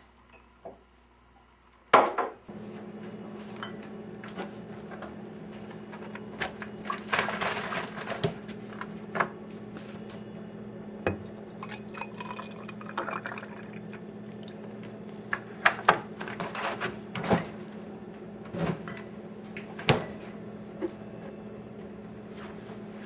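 Liquid poured into a drinking glass amid kitchen clinks and knocks, with a loud knock about two seconds in. A steady low hum starts just after that knock and runs underneath.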